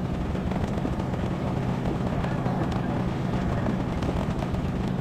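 Boat engine running steadily at sea, a constant low hum under the rush of wind and water.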